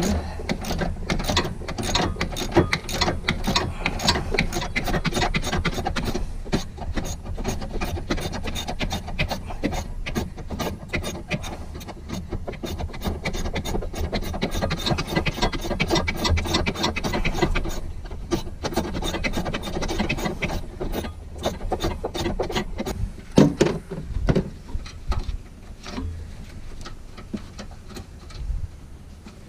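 Hand ratchet clicking quickly as it turns a transmission mount bolt through a wobble extension, backing the bolt out. The clicking thins to a few scattered knocks for the last several seconds.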